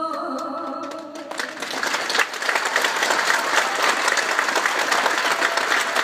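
A held a cappella sung note ends about a second in, and audience applause breaks out, swells and then carries on steadily.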